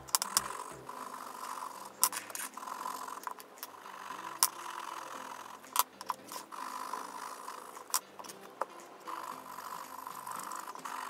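Coloured pencil scratching on paper in quick back-and-forth shading strokes, in stretches, with several sharp clicks as pencils are put down on and picked up from the table.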